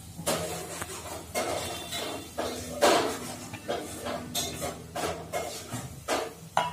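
Wooden masher pounding cooked gongura (sorrel) leaves in a steel bowl: about a dozen uneven thuds, roughly two a second, the stick knocking against the steel. The loudest stroke comes a little under halfway through.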